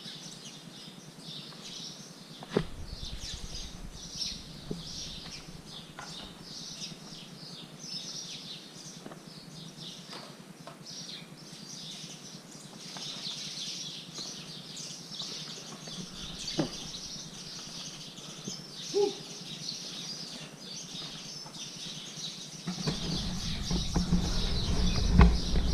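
Many small birds chirping continuously in rapid, overlapping short calls. A few sharp knocks sound now and then, and a low rumble builds up near the end.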